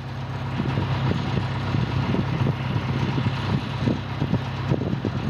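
An engine running steadily, growing a little louder over the first two seconds, with scattered short knocks and crackles over it.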